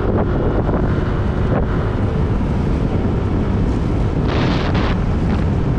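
Wind buffeting the microphone of a moving motorbike, a steady loud rumble with the bike's running engine and tyre noise underneath; the wind gusts louder for a moment about four seconds in.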